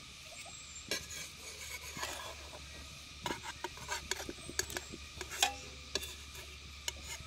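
A metal spoon scraping and tapping lightly against a metal frying pan in short, scattered strokes as it works at the edge of a cooking pancake.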